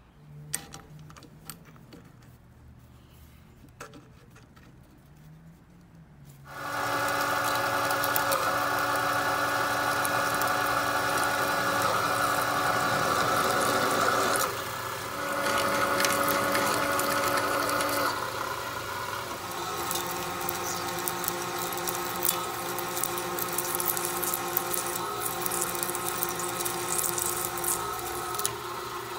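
Vertical milling machine spindle running with a twist drill cutting through a steel flat bar: a loud steady gear whine mixed with cutting noise, starting about six seconds in after a few faint clicks. It drops out briefly twice and then settles at a slightly different pitch.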